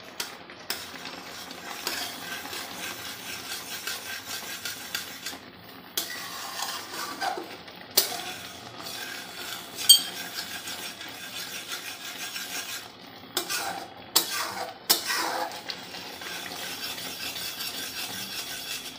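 A spatula stirring and scraping around a metal kadai of thickened, simmering milk being reduced for kalakand, with several sharp clinks of the spatula against the pan, one ringing about halfway through.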